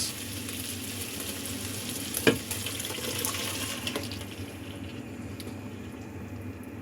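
Chicken meatballs sizzling in a frying pan, with a single knock about two seconds in; the sizzle grows fainter a little past halfway.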